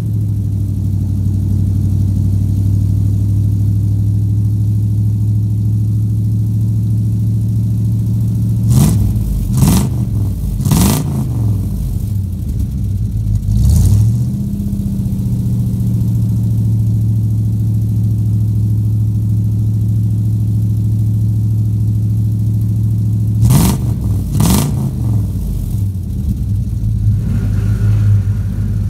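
A 1992 Ford F-250's 460 big-block V8 idles with a steady low rumble through true dual exhaust with 30-inch glasspacks and no catalytic converters. The throttle is blipped three times in quick succession about nine to eleven seconds in, once more near fourteen seconds, and twice around twenty-four seconds. The engine is still cold from a start at about 30 °F after sitting for three months.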